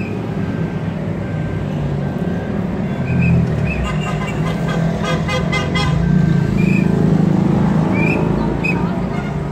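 Steady low rumble of a car driving, heard from inside the cabin. About halfway through, a rapid run of short horn toots sounds for a couple of seconds.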